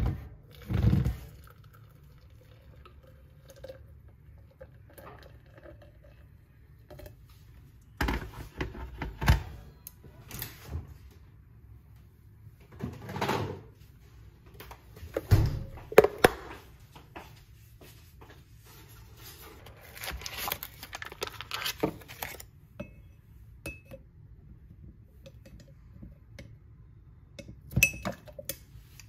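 Scattered kitchen clatter from a glass blender jar being handled and set down on the counter: short knocks, thunks and clinks in separate bursts, with a short stretch of softer hissy noise about two-thirds of the way through.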